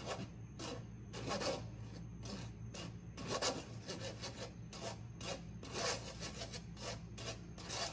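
A metal spoon scraping flour through a fine wire-mesh sieve: a quick, irregular run of rasping strokes, about two to three a second.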